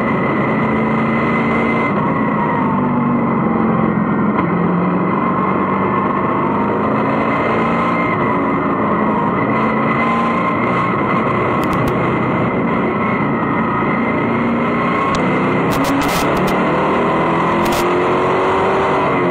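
Race car engine heard from inside the cockpit, running hard with its pitch rising and falling as it laps a dirt oval. A few sharp clicks come in the last few seconds.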